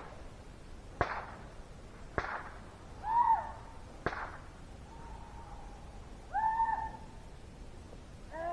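Hunting dogs baying on a deer chase, with two drawn-out howls about three and six and a half seconds in. Three sharp cracks of distant gunshots about one, two and four seconds in.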